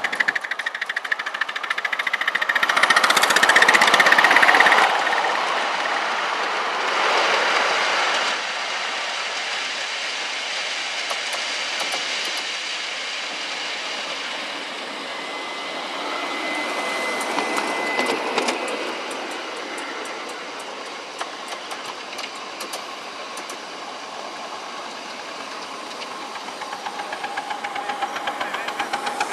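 Miniature live-steam locomotives on 5-inch gauge track running past with their trains: quick, even exhaust beats and wheels clicking along the rails. It is loudest about three to five seconds in, as the first engine passes close.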